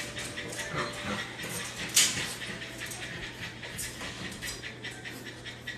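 Newborn French bulldog puppies whimpering faintly, with rustling and light clicking from handling around them.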